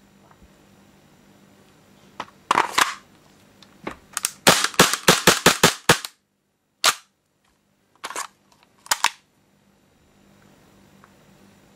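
Tokyo Marui Sentinel Nine gas blowback airsoft pistol firing with its slide cycling. A couple of single shots come first, then a fast string of about eight to ten shots over roughly two seconds, then a few more spaced single shots.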